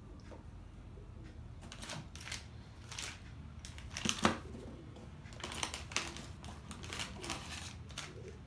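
Small electronic parts and their plastic packets being handled and sorted: scattered clicks, taps and short rustles, busiest about four seconds in and again in the second half.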